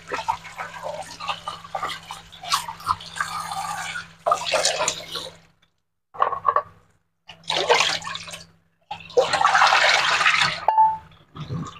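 Water running and splashing, continuous for about five seconds and then coming in four shorter bursts with brief pauses between them.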